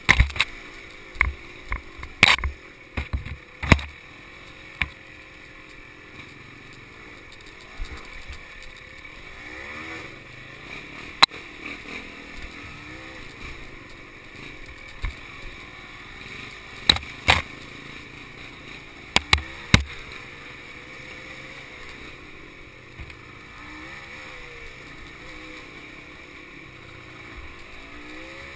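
Honda CRM250 single-cylinder two-stroke dirt bike engine running at low revs, its pitch rising and falling with the throttle. Sharp knocks cut through it, several in the first few seconds and a few more past the middle; these are the loudest sounds.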